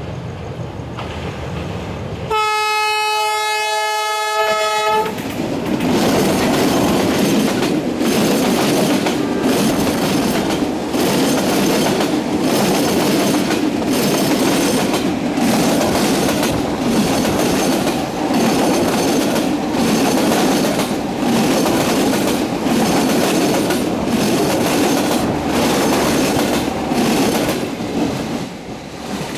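Đổi Mới diesel locomotive sounds its horn once, a chord held for about two and a half seconds. Then the passenger train rumbles across the railway bridge, its wheels knocking over the rail joints about once a second, easing near the end.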